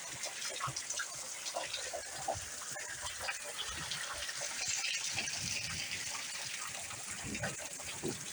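Steady rain falling, with many small drips and splashes close by.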